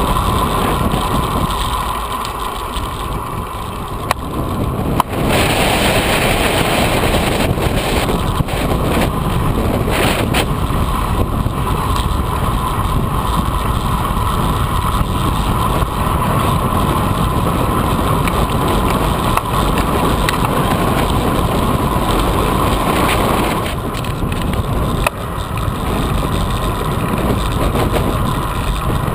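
Wind buffeting the microphone of a camera on a road bike moving fast along an asphalt path, with the bike's rolling noise beneath. It eases slightly about two seconds in and comes back louder suddenly about five seconds in.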